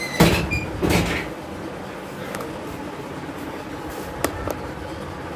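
Wooden wardrobe door knocking twice, under a second apart, as it is swung and pushed against the frame. A single light click follows a few seconds later.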